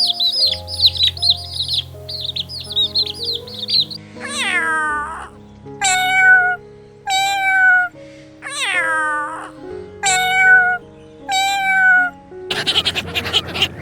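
A cat meowing six times in a row, each meow sliding down in pitch, over background music. Before the meows, birds chirp rapidly; near the end a noisy panting sound begins.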